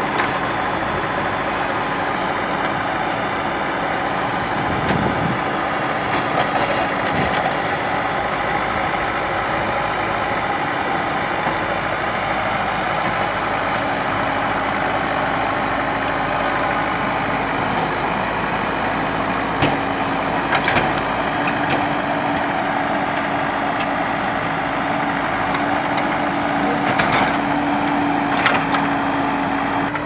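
Backhoe loader's diesel engine running steadily, its pitch edging slightly higher in the second half, with a few short sharp knocks near the middle and towards the end.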